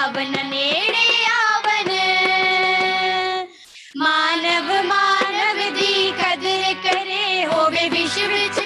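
A group of girls singing a Punjabi devotional bhajan together, with long held, ornamented notes over a steady instrumental drone. The music breaks off for about half a second partway through, then resumes.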